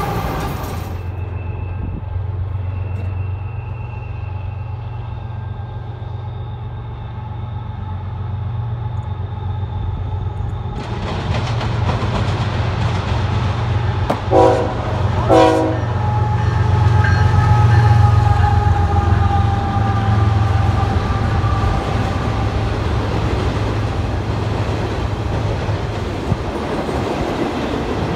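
Freight trains passing: intermodal container cars rumble by on the rails. About halfway through, a second approaching train's locomotive horn sounds two short blasts. Its locomotives and double-stack container cars then rumble past, louder and close by.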